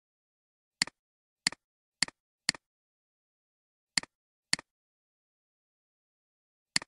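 Computer mouse button clicking seven times at irregular intervals, each click a sharp press followed by a softer release, with silence between.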